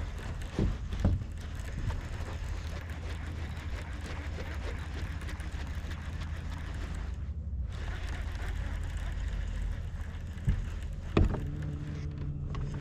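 Steady low hum and water noise on a small fishing boat, with a few short knocks near the start and again near the end.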